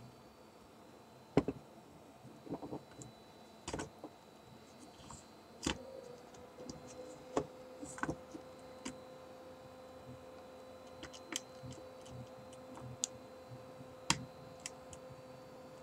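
Scattered small clicks and taps of fingers handling the opened iPod Color's plastic and metal parts, with a faint steady hum coming in about six seconds in.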